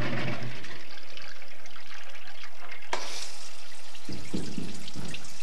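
Top-loading washing machine running, water sloshing and splashing as it fills and washes. A sharp click comes about three seconds in, and low thuds follow near the end.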